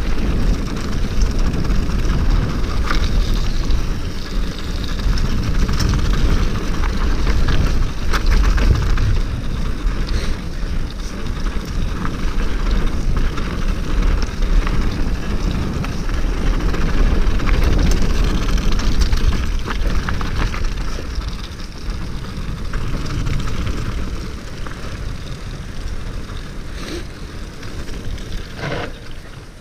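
Mountain bike riding fast down a frozen, frosty dirt trail: wind rushing over the camera microphone and tyres rumbling over the hard ground, with frequent clicks and rattles from the 29er steel hardtail. It eases off over the last several seconds.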